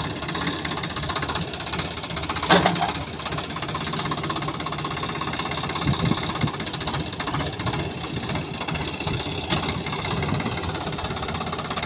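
Swaraj 744 XT tractor's three-cylinder diesel engine running steadily as the tractor moves slowly, with one sharp knock about two and a half seconds in.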